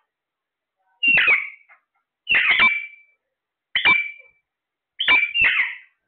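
Alexandrine parakeets giving five short, harsh squawking calls. The first comes about a second in, and the last two run back to back near the end.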